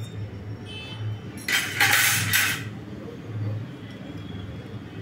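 Steel kitchen utensils clinking and scraping against a frying pan while a fried malpua is pressed and handled in hot oil, with a louder hissing scrape about a second and a half in.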